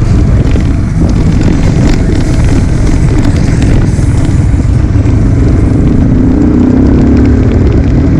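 Yamaha R15 V3's single-cylinder engine running under way, mixed with heavy wind rumble on the microphone; the engine note rises a little near the end as the bike accelerates.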